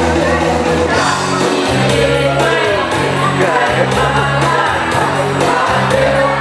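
Music with a singing voice over a bass line that changes note every second or so.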